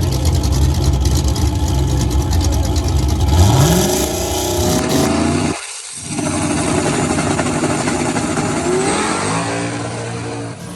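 Drag-race car engine running loud and steady, then revving with a rising pitch. The low end drops out briefly about halfway, and the engine climbs in pitch again near the end.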